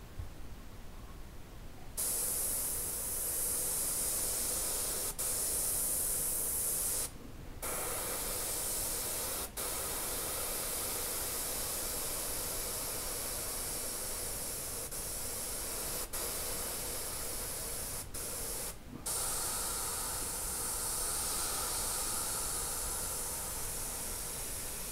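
Airbrush spraying paint: a steady hiss of air that starts about two seconds in, broken by a few brief pauses.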